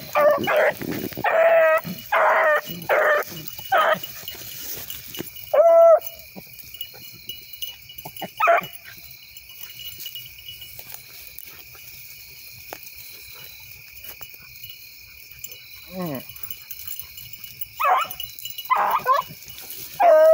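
Rabbit hounds baying in quick repeated bursts for the first few seconds, then a few scattered single bawls, one drawn out and falling in pitch, and a fresh run of baying near the end: hounds giving voice while working a rabbit's track.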